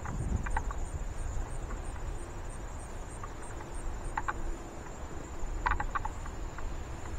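Insects singing steadily in a meadow, a continuous high-pitched trill with a faint even pulsing. Underneath are a low rumble and a few short faint ticks.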